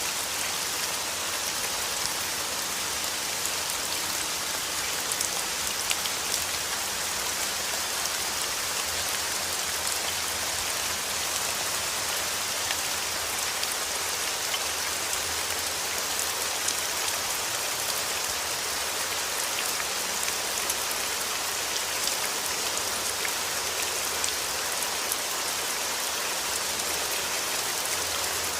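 Steady rain falling, a constant hiss of drops dotted with many small ticks of individual drops landing.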